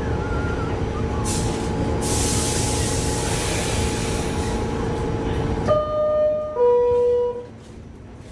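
New York City subway car running: a steady rumble and hum from the train, with bursts of air hiss about one and two seconds in. Near the end a falling two-note chime, the subway's door signal, sounds twice in turn, and the rumble drops away.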